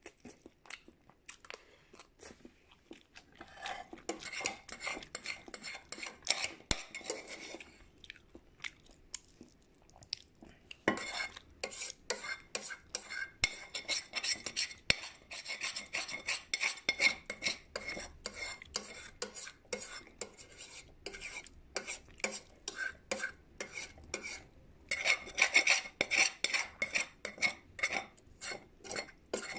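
Close-miked eating utensil clicking and scraping against a dish in quick, dense runs of ticks. There are quieter gaps at the start and about a third of the way in.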